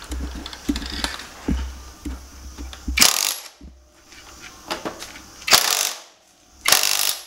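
Cordless brushless impact wrench (NRT TX-30DC) hammering on a motorcycle's front axle nut to loosen it, in three short bursts of rapid rattling: one about 3 seconds in and two close together near the end.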